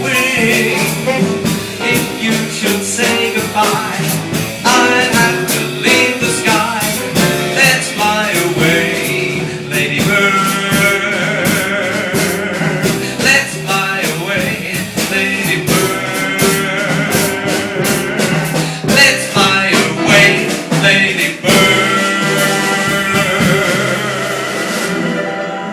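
Live jazz band playing: drums and cymbals keep up busy strokes under a wavering lead melody line, with piano and bass beneath.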